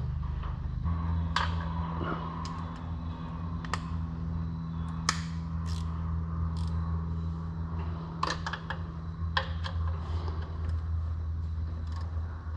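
Irregular metallic clicks and light knocks of a spanner working a nut on an alternator wiring terminal, over a steady low hum.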